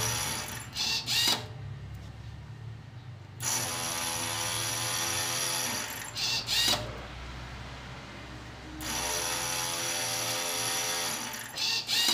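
Semi-automatic cotton wick making machine cycling on its own: its motor whirs steadily for a couple of seconds, then a quick pair of mechanical clacks, then a short lull. This repeats about every five and a half seconds, with the clacks about a second in, near the middle and at the very end.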